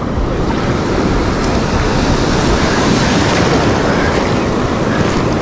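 Ocean surf breaking and washing close around, mixed with wind buffeting the microphone: a loud, steady rush of water and wind.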